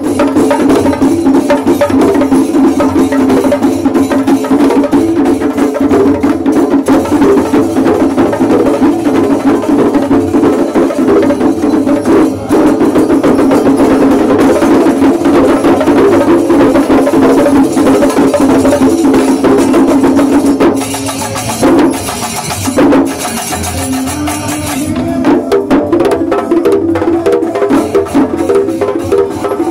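Traditional Kerala temple percussion ensemble playing: fast, dense drumming and cymbal strokes with a steady held wind-instrument tone over them. The music drops in loudness for a few seconds about two-thirds of the way through, then builds again.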